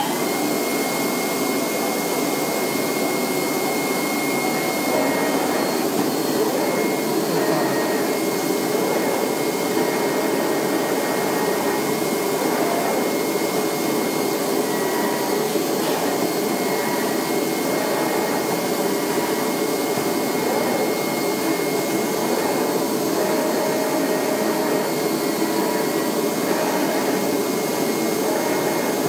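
Flatbed digital cutting machine running, its vacuum hold-down table blower giving a loud, steady rushing with a thin high whine on top.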